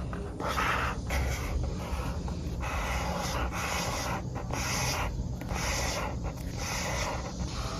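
Paper and journaling materials being handled and rubbed by hand, in a series of scratchy strokes of about half a second to a second each.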